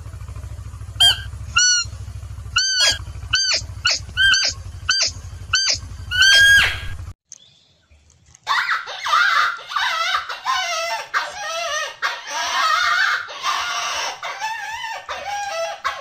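Animal calls: a series of about ten short, squeaky, high-pitched calls over a steady low hum, then, after a break of about a second and a half, a dense chattering of overlapping squeaks and chirps.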